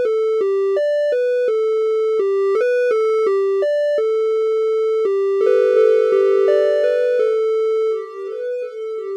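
Omnisphere synth patch on a plain triangle-wave oscillator playing a simple single-note melody, the notes stepping up and down every few tenths of a second. About five seconds in the notes start to overlap and hold longer, and near the end the tone gets softer and one note slides in pitch.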